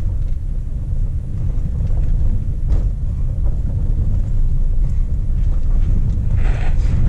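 Car's engine and tyres rumbling steadily, heard from inside the cabin while driving slowly over a rough, unpaved road, with a single knock about three seconds in, as from a bump.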